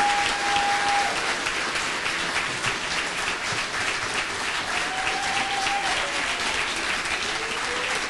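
An audience applauding steadily, with two long held cheers rising over the clapping, one right at the start and one about five seconds in.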